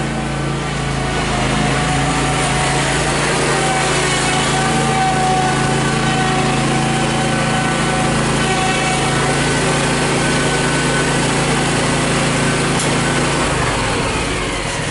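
Toro Z-Master zero-turn mower's engine running steadily. About a second and a half before the end its speed drops and the pitch falls.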